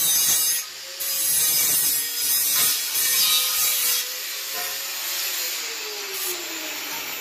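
Handheld angle grinder with a thin cutting disc cutting into stainless steel pipe, a harsh high hiss in strokes with a short break just before a second in. About four seconds in the disc comes off the metal, and from about five seconds the motor hum falls in pitch as the grinder winds down.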